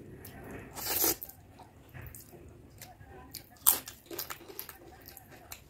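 Close-up eating sounds: chewing, and fingers squeezing and scooping soft khichdi rice, with a louder wet burst about a second in and a sharp mouth click at about three and a half seconds, the loudest sound.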